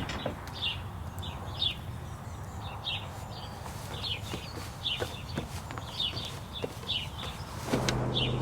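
Small birds chirping outdoors, short high chirps about two a second. A low steady hum comes in near the end.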